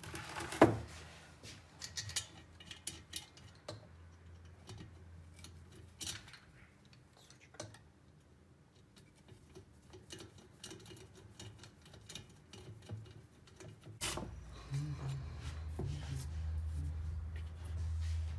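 Scattered light metallic clicks and taps of small tools and metal heater parts being handled during reassembly. About fourteen seconds in, a steady low hum starts and keeps going.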